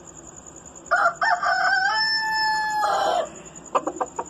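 White rooster crowing once, a call that climbs into a long held final note, followed by a few short clucks near the end.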